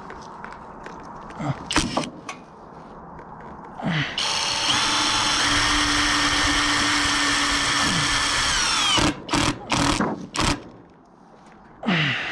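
Cordless impact driver running for about five seconds, driving a roofing screw through steel sheet-metal flashing with a steady whine. It is followed by a few short bursts of the driver as the screw is run down.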